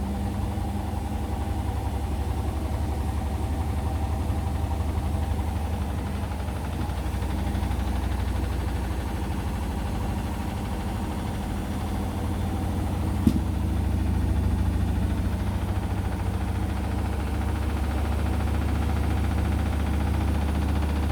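Indesit washing machine in its final spin with a load of towels, the drum running heavily out of balance so the machine shakes and vibrates with a deep steady rumble that slowly swells and eases. One sharp knock about two-thirds of the way through.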